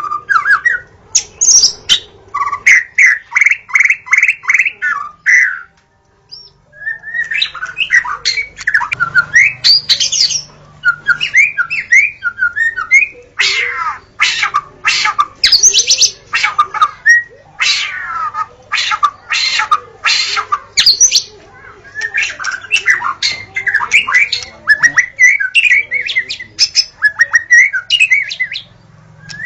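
Wild white-rumped shama singing: a fast, varied run of whistled phrases, rapidly repeated notes and harsh chattering calls, with one short pause about six seconds in.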